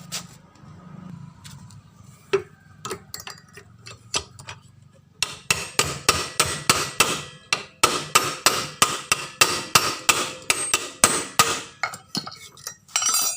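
A few scattered metal tool clinks, then about five seconds in a fast, even run of hammer strikes on metal, roughly three a second, for about six seconds, as a scooter's CVT case is taken apart.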